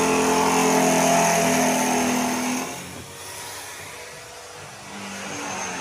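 Bench pillar drill's electric motor running while drilling a small metal bracket plate; the sound drops to a quieter hum about three seconds in.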